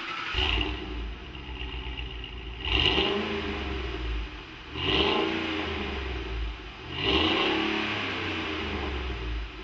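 2009 Ford F-150's V8 on its stock exhaust, idling and revved four times, about every two seconds, each rev rising then falling back to idle.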